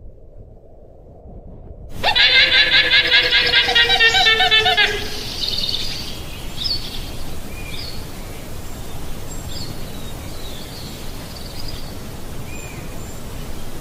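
A llama calling: one loud, wavering, high-pitched call about three seconds long, starting about two seconds in. After it come scattered short bird chirps.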